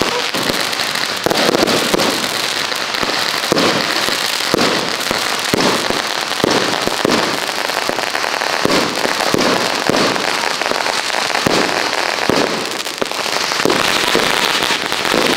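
Consumer fireworks going off in a steady barrage, with many close, overlapping bangs and crackles and no pause.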